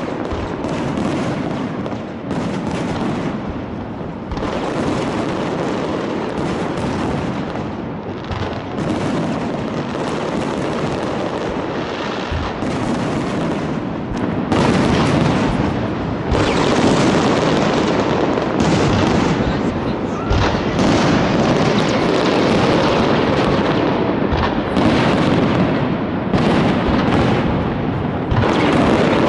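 Fireworks display: a dense run of booms and crackling bursts going off one after another, getting louder about halfway through.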